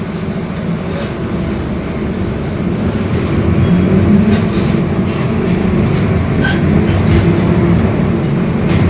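A Mercedes-Benz OF-1721 BlueTec 5 bus running under way, with the low drone of its differential, growing louder over the first four seconds. Scattered light clicks and rattles sound on top.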